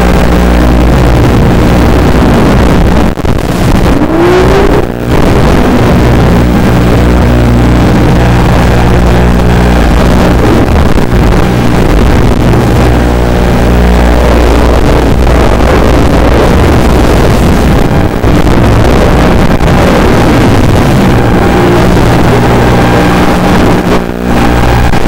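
FPV racing quadcopter's motors and propellers buzzing loud and distorted, with gliding changes in pitch and a few brief drops in level as the throttle changes.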